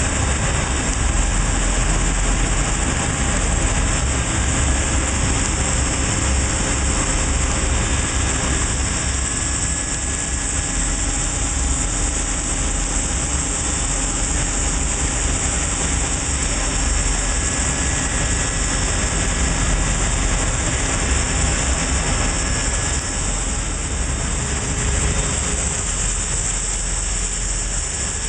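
Butler Newall CNC strut grinder running: a steady low machine hum under a constant hiss of coolant spraying as the wheel grinds a long steel shaft.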